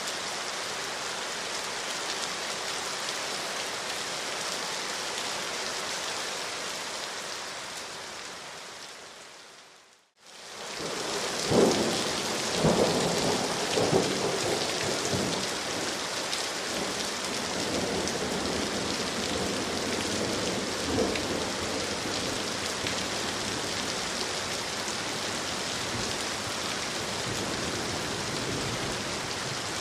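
Steady rain falling on leaves and the ground, an even hiss. About ten seconds in it fades away to near silence and comes straight back in, followed by a few louder low thuds over the next few seconds.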